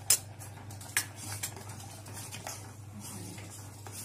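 Steel ladle stirring sugar into thick kheer in a stainless steel pot, knocking against the pot's side with sharp clinks: the loudest right at the start, another about a second in, and a few fainter ones after. A steady low hum runs underneath.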